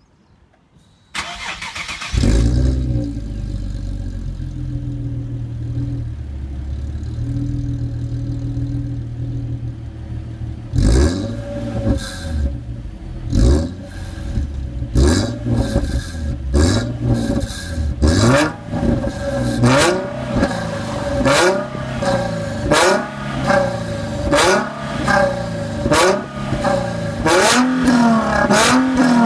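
Nissan 370Z's 3.7-litre V6 with a SACLAM aftermarket exhaust starting up about two seconds in and idling steadily, then from about eleven seconds in being blipped over and over, each blip a quick rise and fall in revs, coming faster near the end. The blips carry a crackly edge that the uploader puts down to the catalytic converter change on a prototype front pipe.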